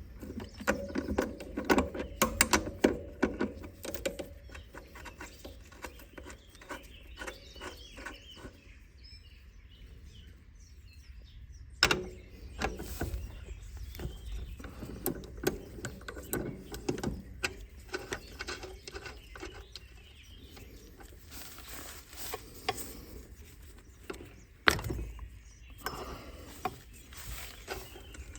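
Irregular metallic clicks, rattles and knocks of hand tools and bike parts as the rear axle nuts are loosened and the wheel is taken off an e-bike. The clicking is busiest at the start, with a sharper single knock about 12 seconds in and another near the end.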